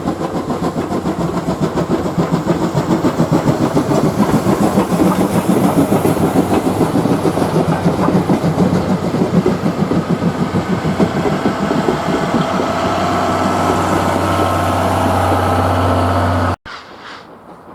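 Japanese National Railways Class C11 steam locomotive running with its train, a dense sound pulsing in a fast even rhythm that grows louder over the first few seconds. It cuts off abruptly near the end.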